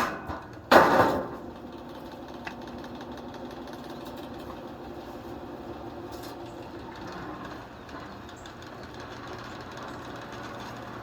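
A rock strikes an already damaged electric box fan: two loud impacts under a second apart, the second rattling briefly. Then the fan's motor runs on with a steady hum.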